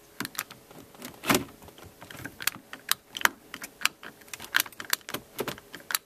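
Irregular sharp plastic clicks and rattles from a 2004 Volvo XC90's automatic gear shifter as it is worked by hand. The shifter will not go into or out of Park, and the owner suspects a broken part inside it.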